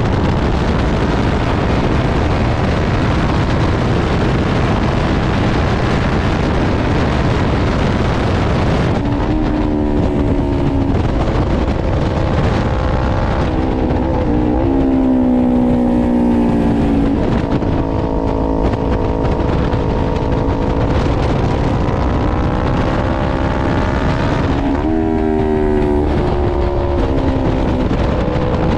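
400cc race bike's engine at high revs under heavy wind roar at speed, then the engine note comes through clearly as the bike slows for the corners, its pitch stepping down and rising again through gear changes several times.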